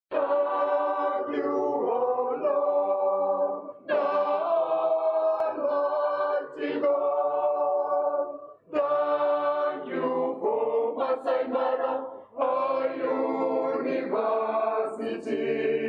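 A choir singing sustained chords in phrases of three to four seconds, with short breaks between them.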